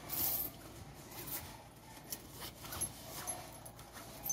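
Rustling of a backpack and its straps as it is pulled on over the shoulders, with light knocks and a few faint squeaks.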